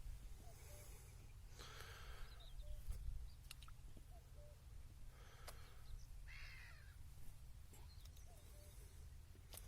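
A crow cawing a few times in the distance, faint over a steady low outdoor background.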